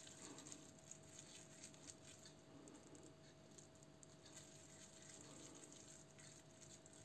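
Near silence, with faint soft squishing of hands rolling a ball of minced meat mixed with grated potato and carrot, over a faint steady hum.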